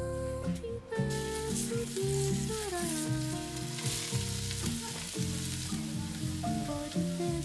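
Water lotus stems sizzling as they stir-fry in a pan on a gas burner; the sizzle starts about a second in. Background music plays along with it.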